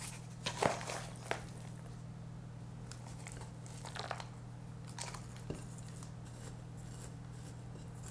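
Potting mix being scooped with a plastic scoop and worked into a plant pot by hand: a few short, gritty crunching and rustling scrapes, spread out, over a steady low hum.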